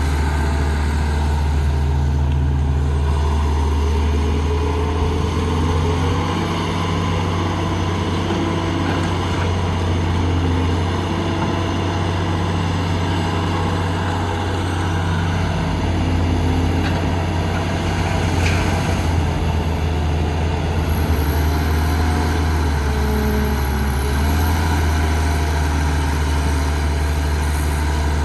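Heavy diesel engine of construction machinery running steadily, its low drone shifting slightly in pitch, with a faint whine rising and falling a few times near the end.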